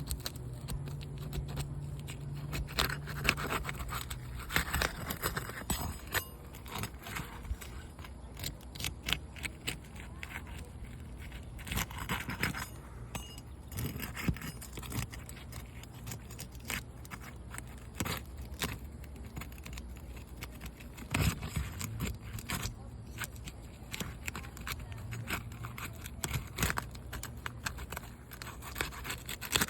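Asphalt roof shingles being pried loose to break their adhesive seal strips: irregular scraping and crackling with many sharp clicks and ticks, in uneven spurts. A faint low hum runs underneath at times.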